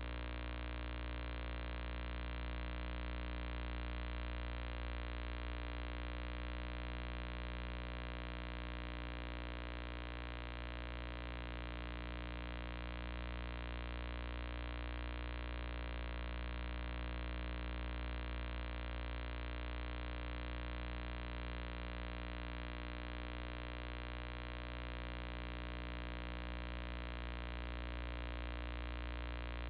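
Steady electrical mains hum and buzz, a low drone with a stack of fixed overtones, holding at one level with no other sound.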